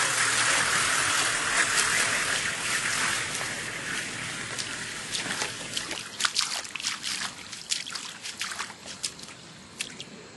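Water trickling and sloshing through a beaver dam, fading over the first few seconds, then a quick run of small sharp clicks and snaps from about halfway on.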